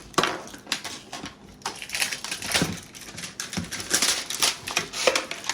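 Plastic packaging crinkling and rustling, with irregular clicks and knocks, as a small toy is unwrapped and handled.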